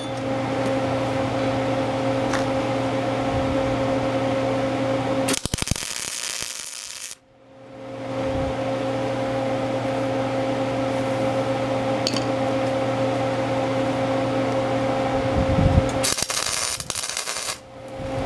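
A machine running with a steady low hum, interrupted twice by several seconds of loud rushing noise, about five seconds in and again near the end.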